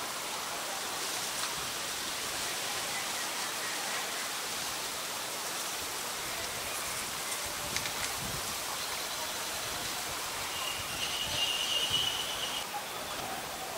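Steady outdoor background hiss, with a few faint clicks about halfway through and a thin, high, steady tone lasting about two seconds near the end.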